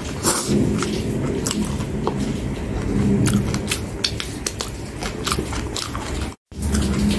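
A person chewing and biting food, with many small wet mouth clicks. The sound cuts out for a split second about six seconds in.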